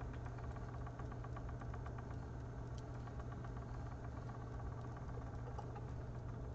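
Magpie Daedalus electric spinner running steadily, its motor driving the flyer and a full bobbin of corespun art yarn at high speed with a steady low hum.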